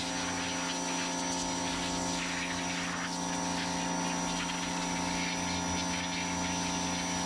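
A steady hum made of several fixed tones over a light hiss, holding level throughout.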